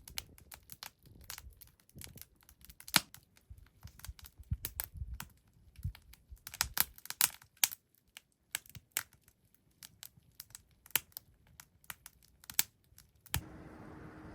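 Irregular sharp clicks, taps and crinkles from objects being handled close to the microphone. About a second before the end it cuts abruptly to a steady hiss with a low, constant hum.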